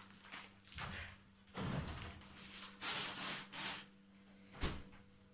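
Off-camera handling noise: about half a dozen short rubbing and scraping sounds of things being moved about on a table, with a sharp knock near the end.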